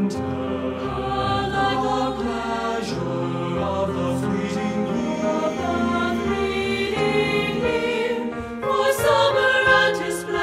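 Three-part SAB choir singing in harmony with piano accompaniment.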